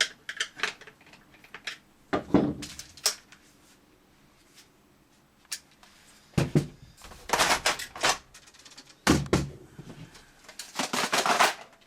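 Hard plastic parts of a paintball gun's magazine being handled and fitted together: scattered clicks with a few short clusters of knocks and rattles, the busiest near the end.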